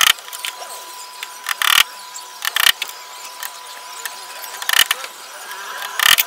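Hammer driving small nails into thin wooden trellis slats: a handful of sharp blows at uneven intervals.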